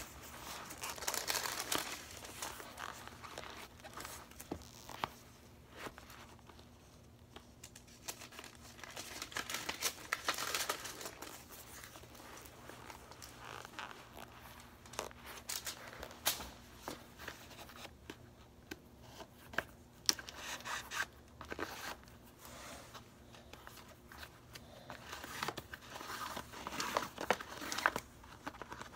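Intermittent bursts of rustling and crinkling from something being handled, with scattered soft clicks and knocks in between.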